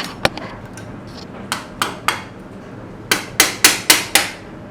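Hammer blows on a tool wedged behind an RB25DET oil pump to break its RTV gasket seal: a few spaced single strikes, then a quick run of about five, about four a second, near the end.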